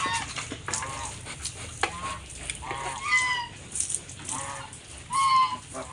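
Several 70-day-old weaned piglets squealing and grunting in short, high calls, about six of them at uneven intervals, the loudest near the end.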